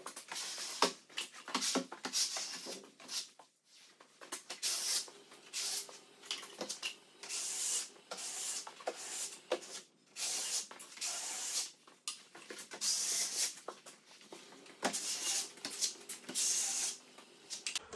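Drywall skimming blade on an extension pole swiping joint compound across a ceiling: a run of scraping swishes, one stroke after another, with a few light clicks between strokes.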